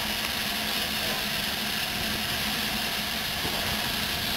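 Steam locomotive built at Crewe in 1948, standing with steam up: a steady hiss of steam over a low, even hum.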